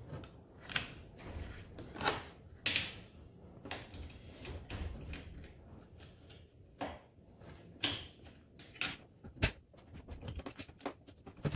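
Hands working a wiring connection on an on-board air compressor: scattered, irregular light clicks and knocks, about eight of them, over faint handling noise.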